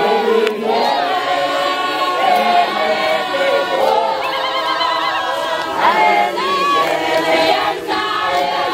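A crowd singing together unaccompanied, many voices at once.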